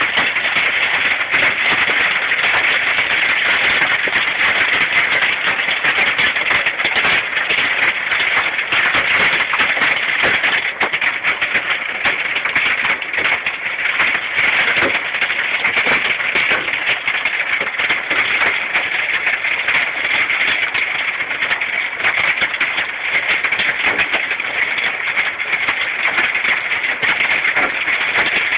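Hail pelting down: a loud, steady clatter of countless small impacts that neither builds nor fades.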